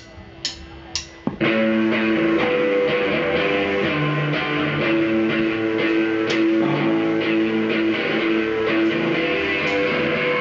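A few sharp clicks, then about a second and a half in a live band starts playing: a strummed acoustic guitar and an electric guitar, with drums behind them.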